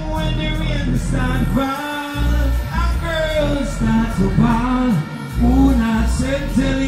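Male vocalist singing live into a microphone over amplified backing music with heavy bass, through a stage sound system.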